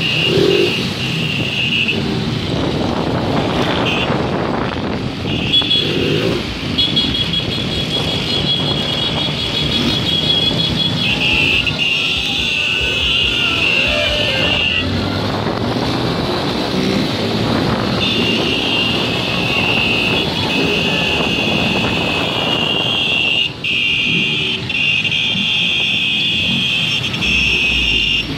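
Honda CG 160 Fan motorcycle's single-cylinder four-stroke engine revving hard through long wheelies, mixed with wind on the microphone and the engine of the motorcycle carrying the camera.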